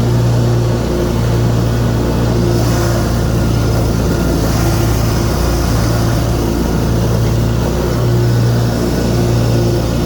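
Kawasaki FX 28 hp engine of a Wright Z commercial zero-turn mower running steadily under load, with the cutting blades engaged while it mows.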